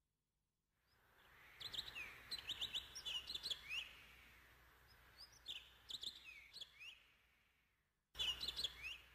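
Faint birdsong ambience: clusters of quick high chirps and short falling whistles over a soft hiss. It fades in, fades away, then cuts back in abruptly near the end for one more burst of chirps.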